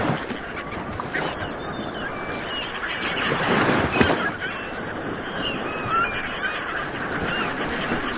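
Ocean waves rolling and washing in, swelling about halfway through, with many short bird calls scattered over the surf.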